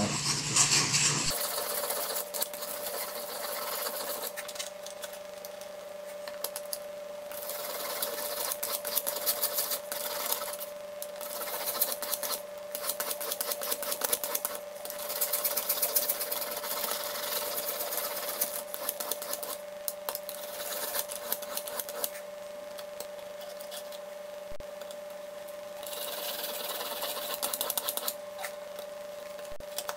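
Abrasive stone on a guided-rod knife sharpener rubbed rapidly in circles over a steel knife edge, a fast rasping grind that swells and eases every few seconds, sped up. The stone is grinding a new 20-degree bevel onto a dull blade. A faint steady hum runs underneath.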